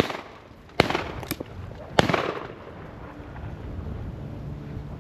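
Shotguns firing at a flushed game bird: a loud shot about a second in, a fainter shot just after, and another loud shot at about two seconds, each trailing off in an echo. Wind noise follows.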